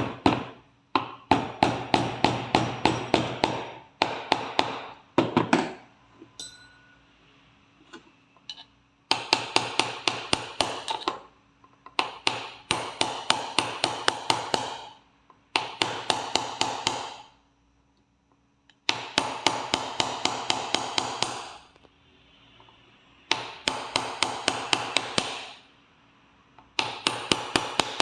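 Rapid light hammer taps on metal parts of an AR-15 gas control assembly, about six a second with a ring after each. They come in runs of one to three seconds separated by short pauses.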